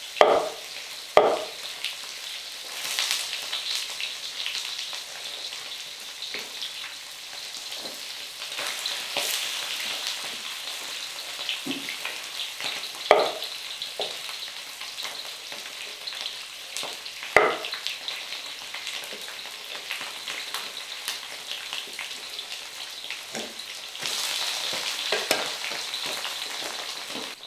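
Pieces of pork fat sizzling in a wok over a wood fire as they render down into lard; the hiss grows louder near the end. A few sharp knocks of a cleaver on a wooden chopping board cut in over it.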